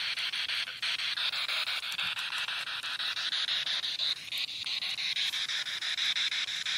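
Spirit box sweeping through radio frequencies: a hiss of static chopped into rapid, even pulses, several a second.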